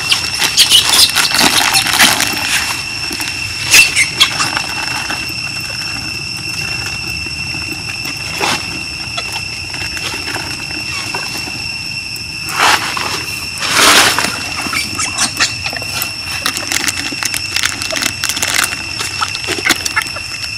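Steady, high-pitched insect drone on two even tones, with short rustles and knocks from close by; the louder rustles come a little past the middle.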